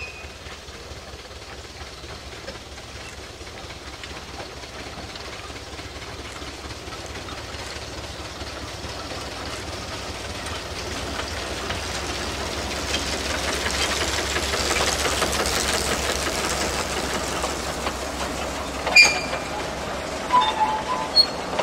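Replica Climax geared logging steam locomotive and its log cars rolling past on a wooden trestle, the running noise of engine and wheels on rail growing steadily louder as the train approaches, then holding as the cars go by. A single sharp clank comes near the end, followed by a few short high squeaks.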